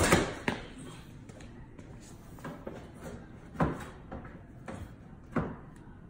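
The outer skin panel of a refrigerator door being pulled off and handled: a loud knock right at the start, a second about half a second later, then two more separate knocks later on.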